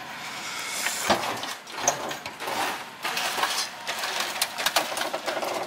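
Rattling, scraping and clanking of metal with many short knocks, as the lowered Saturn is worked up metal loading ramps.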